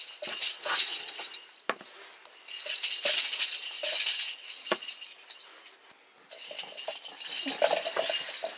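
A small bell shaken in three bursts of jingling, each a second or two long, with a few soft knocks in the pauses between.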